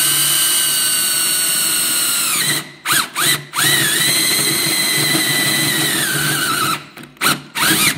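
Handheld power drill with a twist bit boring through the thin painted steel side of a pellet grill. The motor whines in two long runs, each winding down in pitch as the trigger is let off, with short trigger blips between them and near the end.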